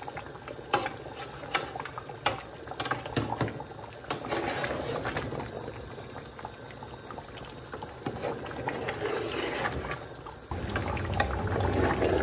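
Thick curry bubbling in a large steel pot as a metal ladle stirs it, clicking and scraping against the pot's sides many times. About ten and a half seconds in, a louder, steadier rush sets in.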